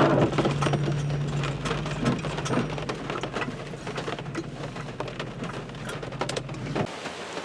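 Rain pattering on a vehicle as tiny scattered taps over the low, steady hum of its running engine. The engine is switched off near the end, and the hum cuts out suddenly.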